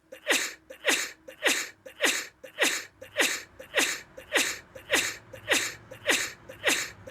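A rapid string of sneezes, about a dozen in an even rhythm of nearly two a second, each short and falling in pitch.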